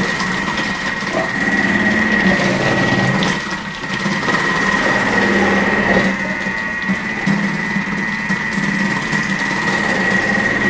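Thermomix TM6 motor running with its cutter attachment on the thick grating disc, shredding cucumber as it is pushed down the feed tube. A steady high motor whine over a low hum, with rough grating noise that eases off briefly a few times.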